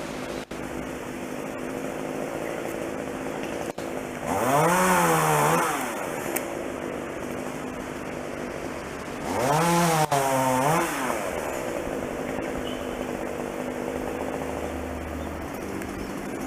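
Chainsaw running, revved up twice for about a second and a half each time, its pitch climbing, wavering at full throttle and dropping back to a steady idle in between.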